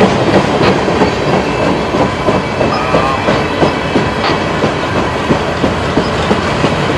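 Freight train's flatcars rolling past close by, their steel wheels clattering over the rail joints in a steady clickety-clack.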